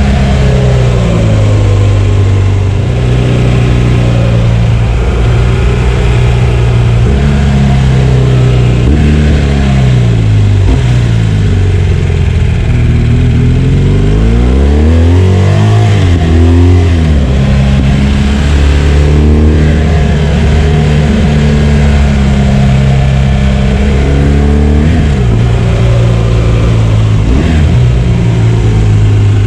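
2016 BMW R1200 GS's liquid-cooled boxer twin engine under way, its revs climbing and dropping over and over with throttle and gear changes. About halfway through the revs fall away and then climb back.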